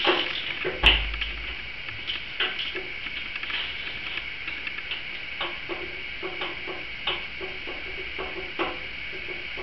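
Wrench work at a Harley-Davidson Sportster's cylinder head while a spark plug is taken out: a sharp metallic knock about a second in, then a run of light, irregular clicks and taps, roughly two or three a second, in the second half.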